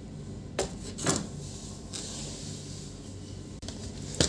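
Handling noise from an opened plastic laptop base being moved and lifted by hand: two sharp knocks about half a second and a second in, a brief rubbing noise around two seconds in, and a click near the end, over a steady low hum.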